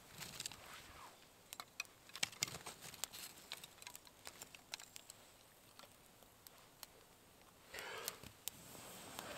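Small twig fire crackling, with scattered sharp pops and snaps, then a short rush of air about eight seconds in as it is blown on to get the flames going.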